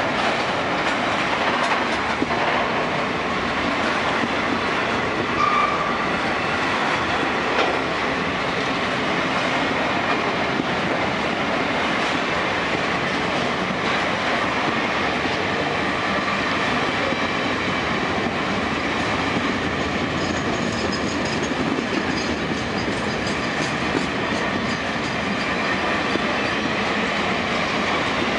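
A train of empty freight wagons, boxcars and grain hoppers, rolling steadily past close by: a constant rumble and clatter of steel wheels on the rails, with faint high squealing notes now and then.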